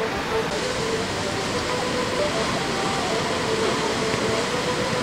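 Steady, unbroken wash of breaking surf and whitewater.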